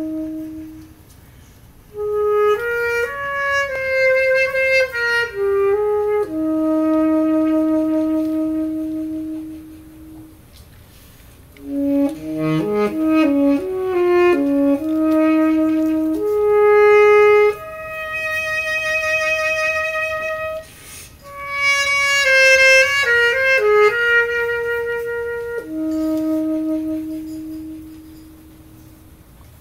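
Saxophones playing three melodic phrases, each ending on a long held note, with short pauses about 10 s and 21 s in; the last held note fades out near the end.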